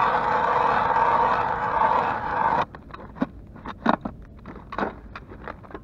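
Hand ice auger's blades grinding into river ice: a steady scraping grind that stops abruptly about two and a half seconds in, followed by scattered short scrapes and crunches of ice.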